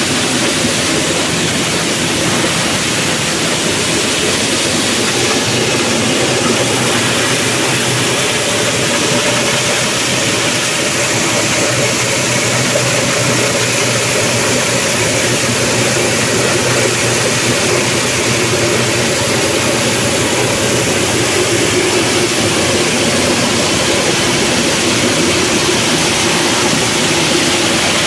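Hammer-mill corn grinder driven by a small stationary engine, running steadily as corn is fed in and ground through a 5 mm screen. Its engine and the rushing grind blend into one loud, even mechanical noise.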